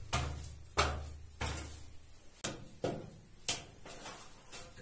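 A short-handled shovel and then a small trowel digging and scraping loose, stony earth: a run of about seven sharp scrapes and thuds, roughly one every half second to second, the first few heaviest.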